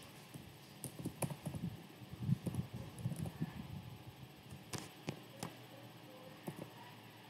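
Faint, irregular clicks of keystrokes on a computer keyboard as a word is typed.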